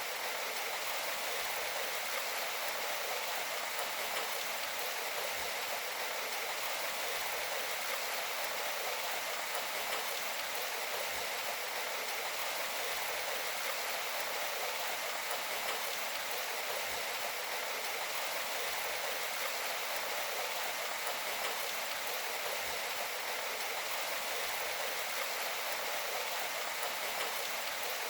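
Steady rain falling, an even hiss with no music.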